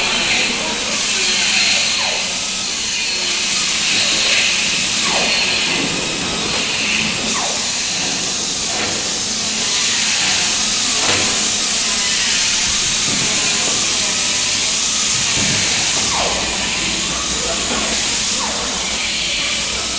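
Steady, loud hiss of workshop background noise, with faint voices underneath.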